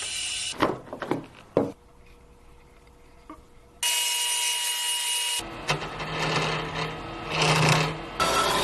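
Woodworking tool sounds in short, abruptly changing clips: a few sharp knocks on wood about a second in, a quieter stretch, then loud steady power-tool noise from about halfway.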